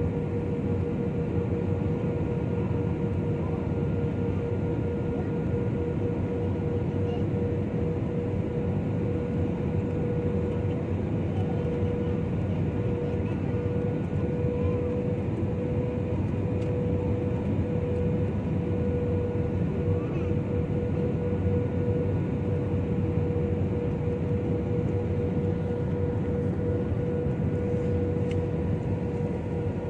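Jet airliner cabin noise heard from a window seat over the wing during descent: a steady rushing drone from the engines and airflow, with a constant hum running through it.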